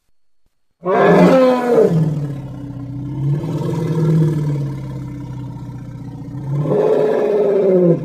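Elephant roaring: one long call of about seven seconds, starting about a second in. It falls in pitch at the start, holds lower and steadier through the middle, and swells and falls again near the end.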